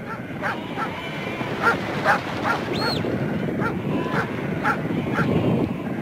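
Sheepdogs barking in short calls about twice a second over the steady din of a large flock of sheep on the move. One brief high whistle sounds about three seconds in.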